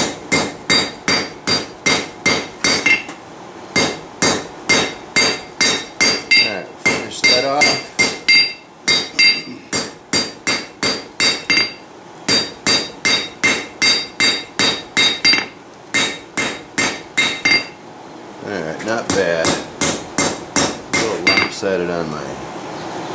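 Hand hammer striking a red-hot railroad spike on an anvil to draw out and square the handle, in steady runs of about three blows a second. Each blow has a bright metallic ring, and there are short pauses between runs.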